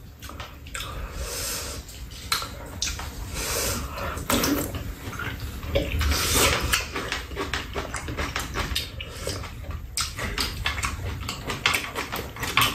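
Close-up eating sounds: slurping and chewing, with spoons and chopsticks clicking against bowls and a pan many times.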